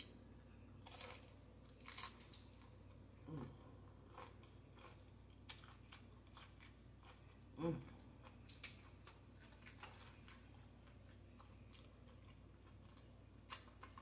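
Faint chewing and crunching of tortilla chips in a taco salad, close to the microphone, with separate crisp crunches every second or so.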